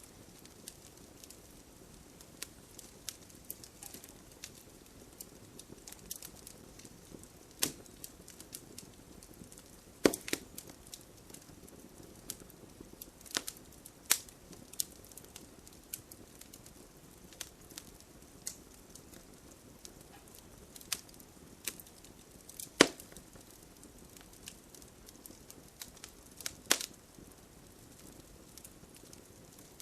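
Wood fire burning in a fireplace, crackling with frequent small pops and a few louder sharp snaps over a soft steady hiss.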